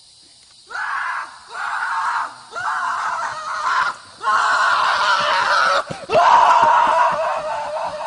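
Horse letting out a series of rasping, human-like screams: five cries, each about a second long with short breaks between, the last two longer.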